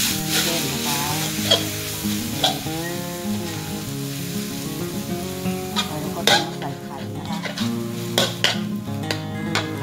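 Metal spatula scraping and clanking against an aluminium wok as glass noodles with sausage are stir-fried dry over a steady sizzle. Sharper scrapes come now and then, more often in the second half.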